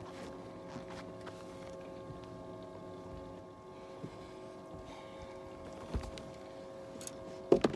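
Electric trolling motor on a bass boat, humming steadily as several held tones. A few light knocks come about 4, 6 and 7 seconds in.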